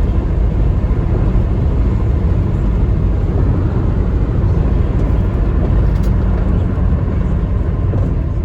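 Steady low rumble of engine and road noise inside the cabin of a 1999 Lexus RX 300 as it drives, its 3.0 L V6 misfiring on cylinder 6, which the owner puts down to a failing ignition coil.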